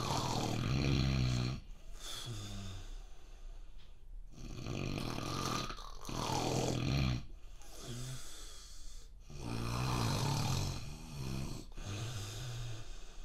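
A man snoring in his sleep, a long rattling snore about every four to five seconds, each followed by a shorter, softer breath.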